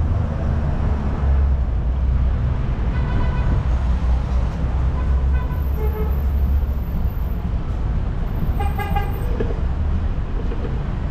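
Steady low rumble of street traffic and wind on a bike-mounted action camera. Short car-horn toots sound about three seconds in, around six seconds, and again near nine seconds.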